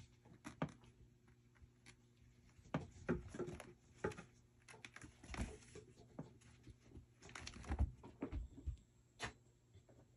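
Kitten playing: irregular soft taps, knocks and scuffles of paws and a small toy ball on a rubber mat and a cardboard arched scratcher, with a few louder knocks in the second half.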